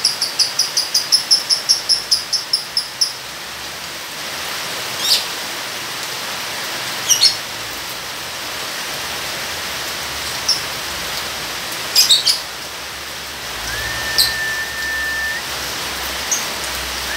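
A lovebird's rapid chattering trill, the 'ngekek' call, about five high notes a second, stops about three seconds in. A few single sharp chirps and a short level whistle near the end follow over a steady hiss of rain.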